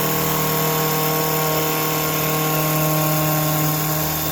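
Electric drill/driver running at a steady speed, driving a bass tuner's mounting screw into the headstock, its motor holding one even pitch over a hiss.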